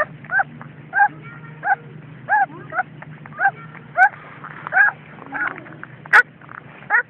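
A puppy whining in short, high, rising-and-falling cries, repeated a little under twice a second while it is bottle-fed. A sharp knock about six seconds in.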